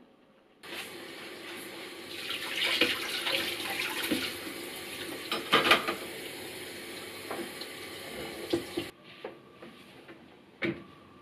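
Kitchen mixer tap running into a stainless steel sink while dishes are rinsed by hand, with dishes clinking several times. The water is turned off about 9 s in, and one sharp knock follows near the end.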